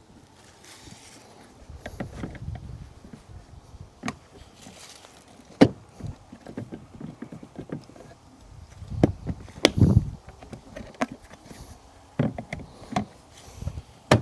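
Irregular clicks and knocks with a few dull thumps as a Yak Attack Trak Pak is handled and fitted onto a kayak's rail mount; the sharpest clicks come about five and a half and nine and a half seconds in.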